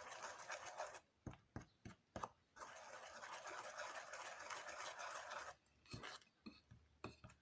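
Faint whisking of batter in a bowl, a soft scraping that comes and goes, with a few light clicks of the whisk against the bowl.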